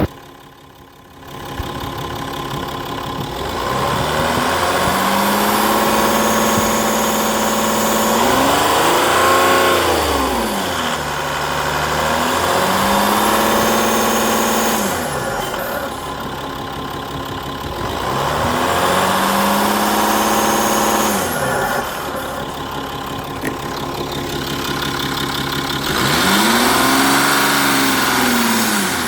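2.7 HDi V6 diesel engine running, revved up and let fall back to idle four times, its pitch rising and dropping with each rev.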